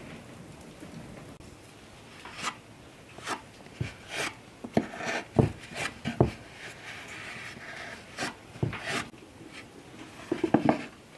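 A knife and fork cutting butter into flour in a wooden dough bowl. The metal knocks sharply against the wood about a dozen times at uneven intervals, scraping through the flour in between, with a quick run of knocks near the end.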